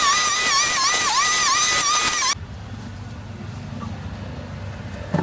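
A loud, high motor whine that dips in pitch now and then cuts off abruptly a little over two seconds in, giving way to a lower, quieter engine rumble.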